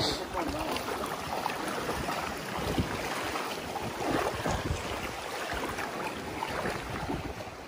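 Wind on the microphone with shallow seawater sloshing and splashing around wading feet.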